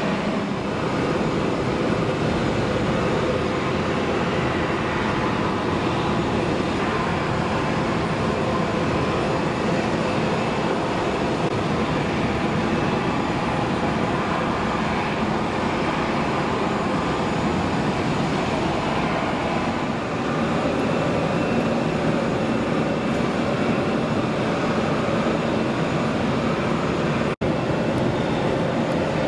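Steady airport ramp noise: a continuous roar from jet engines and auxiliary power units of parked and taxiing airliners, with faint steady whine tones through it. It cuts out for an instant near the end.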